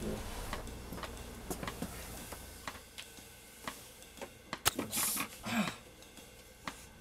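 A spring mouse trap snaps shut on a hand with one sharp crack, followed by a sharp breath and a short falling cry of pain. Faint scattered clicks of rummaging come before it.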